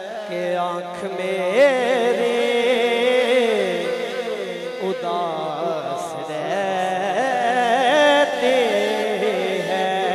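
A man singing a naat solo into a microphone: a long, melismatic devotional line with wavering, ornamented pitch and held notes.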